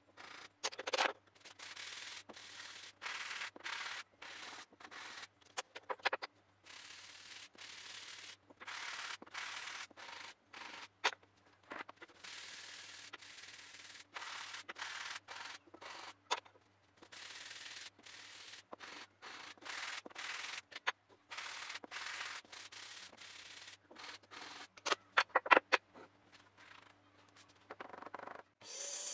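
Plywood pieces rubbed back and forth by hand on a sheet of sandpaper laid flat on a table: a long series of short scratchy strokes with brief pauses between them. A few sharp clacks come near the end.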